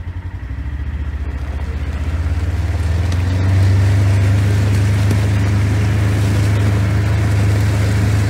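Wind buffeting the phone's microphone: a loud low rumble that flutters at first, then grows louder and steadier after about three seconds, with a hiss over it.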